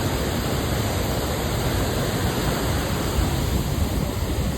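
Swollen river water pouring through a dam's fully open spillway gates: a steady rush of falling, churning water, the high flow from heavy rain.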